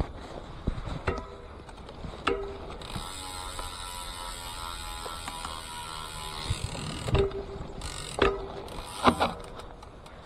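Full-suspension mountain bike being handled and wheeled: the rear freehub ticks steadily for a few seconds as the wheel turns, with sharp clicks and knocks from the bike before and after, the loudest three near the end.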